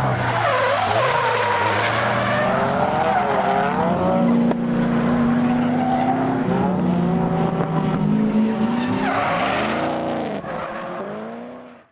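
Drift cars on a track, engines revving up and down with tyres screeching as they slide; the sound fades out near the end.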